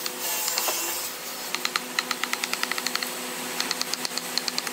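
Chisel cutting and clearing chips in a mortise cut into a hardwood beam: a scraping rush in the first second, then runs of quick, light clicking strokes, about eight to ten a second, over a steady hum.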